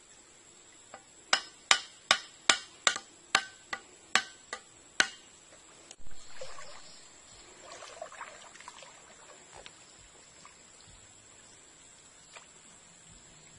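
About ten sharp wooden knocks, a little over two a second, as a wooden stake is pounded into the mud to hold a fish net. A few seconds later, water splashing and sloshing as someone wades.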